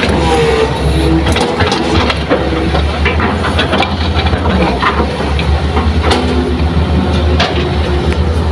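Hitachi hydraulic excavator's diesel engine running steadily under load, with a whining hiss from the hydraulics that shifts in pitch now and then, and scattered knocks and clanks from the bucket and soil.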